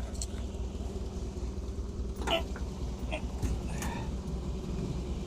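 Small forklift engine idling steadily with a low, even rumble, and a few faint short sounds partway through.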